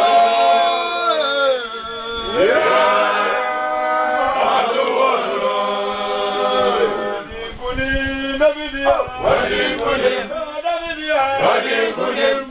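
Men's voices chanting in long, drawn-out notes that slide up and down, breaking into shorter, choppier phrases about seven seconds in.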